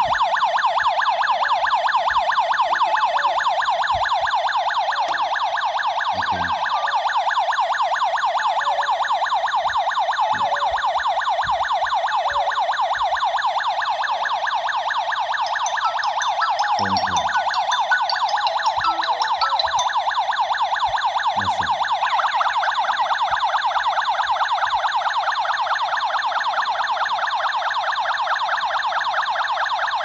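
Tuya Wi-Fi/GSM home alarm system's electronic siren sounding in alarm after the motion sensor has been triggered: a loud, rapidly warbling tone that does not let up.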